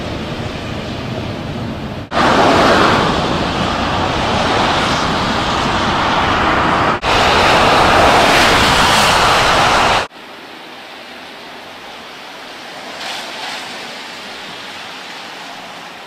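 Blizzard wind rushing over the camera microphone as a steady, even noise, cut abruptly between takes. It is loudest in the middle and drops to a much quieter hiss from about ten seconds in.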